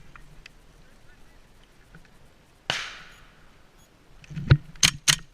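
Airsoft gun firing single shots, sharp cracks about two a second, starting near the end after a heavy thump. A lone crack with a short fading hiss comes about halfway in.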